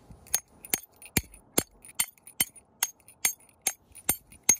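Hammer tapping a half-inch stainless steel Powers wedge bolt down into its drilled hole in the rock: a steady run of light, ringing metal strikes, about two and a half a second.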